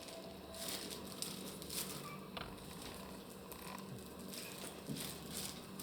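Faint, scattered rustling and crinkling from small pets moving about in their cage.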